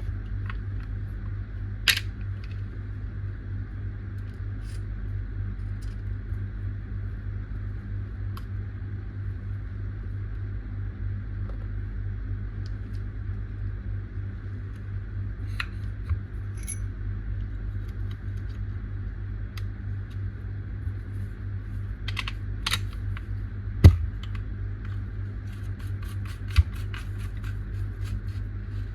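A steady low hum with scattered small hard clicks and taps. One sharper click comes about 24 seconds in, and a quick run of light ticks follows near the end.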